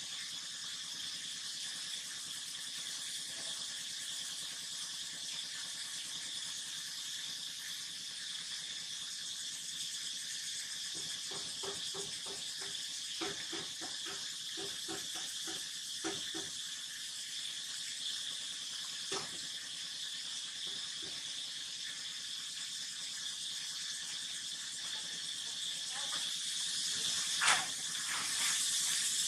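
Steady, shrill insect chorus of crickets or cicadas in the background. About a third of the way in, a few seconds of short, quickly repeated pulsed calls rise over it, and near the end there is a single sharp click.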